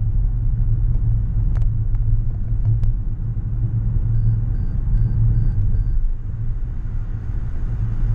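Steady low rumble of a car's road and engine noise heard inside the cabin at freeway speed, tyres running on a wet road.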